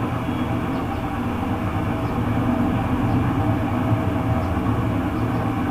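A steady low mechanical hum with an even rushing noise over it, unchanging throughout, with a few faint light scrapes as a steel spoon serves rice onto a glass plate.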